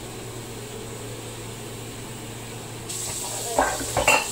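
Kitchen tap running into the sink, turning louder and hissier about three seconds in, then two sharp clanks of kitchenware, the loudest sounds, near the end.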